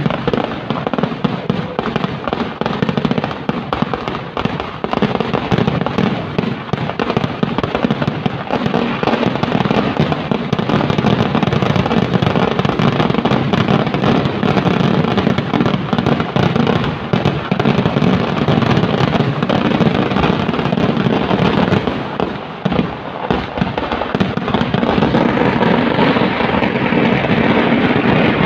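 Dense, continuous barrage of Kerala vedikettu fireworks, the bangs and crackles so close together that they run into one steady rumbling crackle, with a short lull about 22 seconds in.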